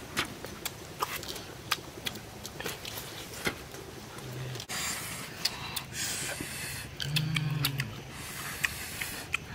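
Close-up eating sounds from grilled fish: irregular wet chewing clicks and lip-smacking, with crisp little snaps as charred skin and flesh are picked apart by hand. Two brief low hums come from a mouth, and there are a few stretches of breathy hiss.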